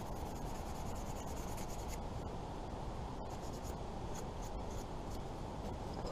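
Knife blade whittling a small piece of wood: short, irregular scraping strokes as shavings are cut off.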